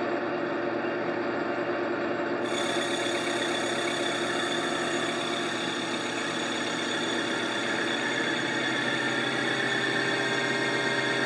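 Boye & Emmes 16-inch engine lathe running steadily under power while turning a wheel spacer, a steady mechanical whine from the gearing with the cutting tool working an interrupted cut across the spacer's holes.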